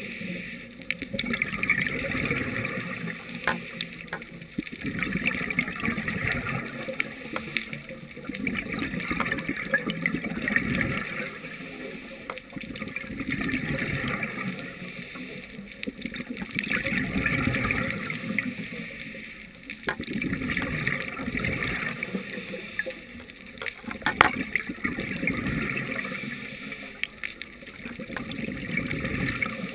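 Scuba diver breathing through a regulator, heard underwater: slow cycles every several seconds of hissing inhalation and bubbling exhalation. A few sharp clicks, the loudest about 24 seconds in.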